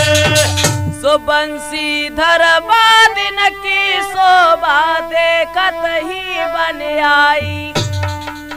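Holi folk song music: a melodic passage with held, bending notes between sung verses, with dholak drum strokes in the first second and again near the end.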